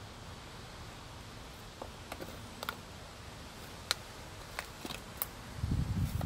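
A capuchin monkey rummaging in a tub of sand with plastic toy shovels and stones: a scatter of small sharp clicks and taps. A louder low rumble comes in near the end.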